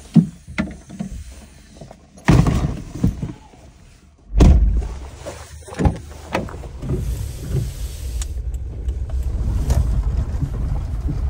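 Car door clunks, the loudest a heavy slam about four seconds in, then a small Suzuki's engine running as the car moves off, a steady low rumble that builds toward the end.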